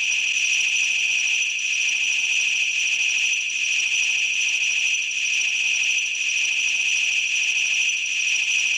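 Synthesized laser sound effect: one unbroken, steady high-pitched tone held without any change in pitch, like a continuous laser beam.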